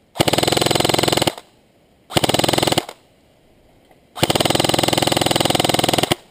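Airsoft rifle firing three full-auto bursts, each a fast even rattle of shots: about a second, then a shorter one, then a longer one of about two seconds.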